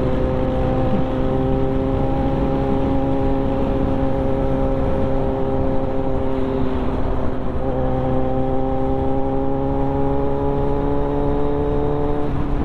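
Kawasaki Z900 inline-four engine running at a steady cruise, with wind and road noise. The engine note breaks briefly about seven and a half seconds in, then climbs slowly in pitch.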